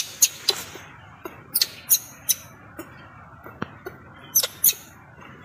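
Baby macaque giving a series of short, shrill distress squeaks at irregular intervals while it is pinned by an adult.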